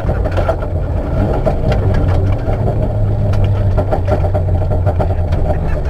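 Car engine running steadily, heard from inside the cabin, with scattered small clicks and rattles.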